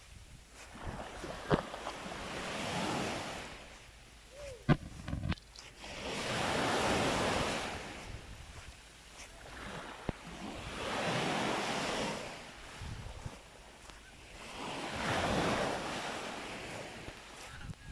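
Surf on a sandy beach: waves breaking and washing up the shore, swelling and fading about every four seconds. Two short, sharp sounds stand out, about a second and a half and nearly five seconds in.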